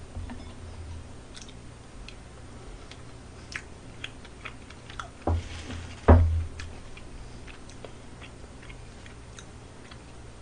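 Close-miked mouth sounds of a person chewing a spoonful of browned cheese scraped from the bottom of a budae-jjigae pan, with small scattered clicks and two short low thumps a little past the middle.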